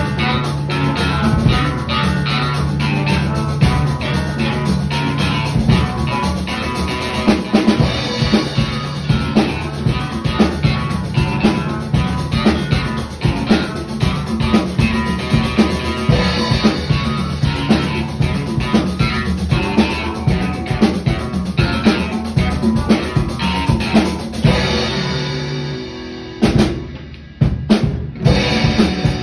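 Band music led by a drum kit, with kick, snare and rimshot strokes over a steady bass line and guitar. About three seconds before the end the music briefly thins out, then the full band comes back in.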